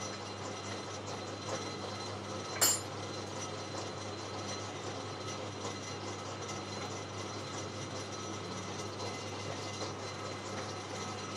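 Band sawmill's engine running steadily with an even hum. One sharp metallic clink comes about two and a half seconds in.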